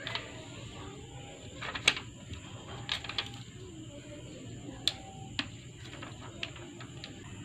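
Scattered sharp clicks and crackles of a thin plastic anti-fog film and its backing being handled and pressed onto a helmet visor by hand, the loudest about two seconds in.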